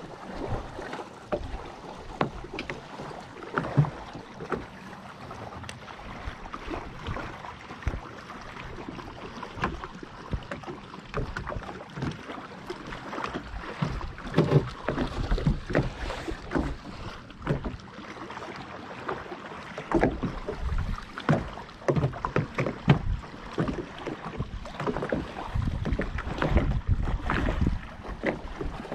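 Small waves slapping and knocking irregularly against the hull of a small fishing boat, over a steady rush of wind and water.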